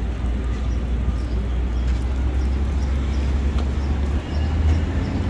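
City street ambience: a steady low rumble of traffic with faint scattered noises on top.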